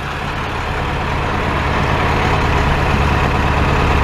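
A vehicle engine running steadily, growing gradually louder.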